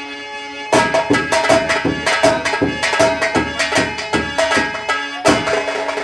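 Music: steady held notes under a run of fast drum strokes. The drumming starts about a second in and stops near the end, leaving the held notes alone.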